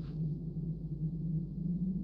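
A steady low hum with a faint, thin high whine above it.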